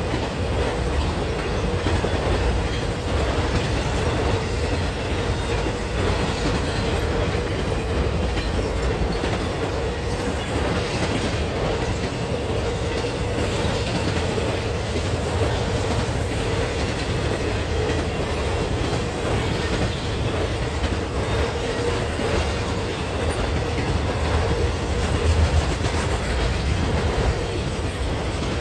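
Intermodal freight train cars carrying trailers and containers rolling steadily past close by, their steel wheels running on the rails. A steady mid-pitched tone sits under the wheel noise.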